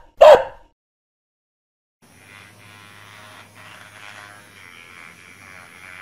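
A short jingle blip from the intro fades out, and after a brief silence a battery-powered vibrating scalp massager starts buzzing faintly and steadily about two seconds in as it is worked over a dog's head.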